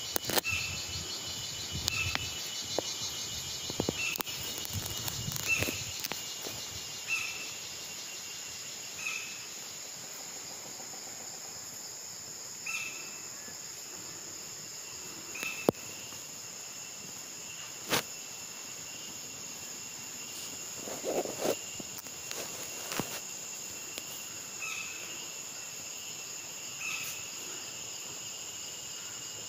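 Steady high buzzing chorus of insects, crickets among them, with a short chirp repeating about once a second at first and more sparsely later. A few sharp clicks cut through, the loudest about 18 seconds in.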